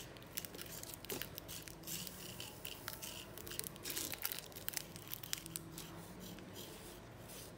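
Coloured sand being pressed and rubbed onto a sticky sand-art card with fingertips, a faint gritty scratching broken by many small irregular clicks and ticks.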